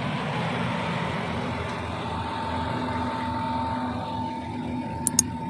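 Komatsu D85E-SS crawler bulldozer's diesel engine running steadily, with two sharp clicks near the end.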